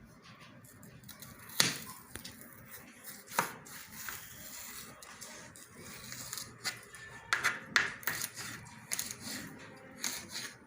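Scattered sharp knocks and clicks of food prep on a cutting board: a knife and celery being handled and cut, at an irregular pace with a quick cluster of taps near the end.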